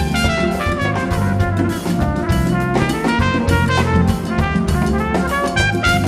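Big band playing a calypso tune, with a trumpet playing a lead line in quick notes over drum kit and bass.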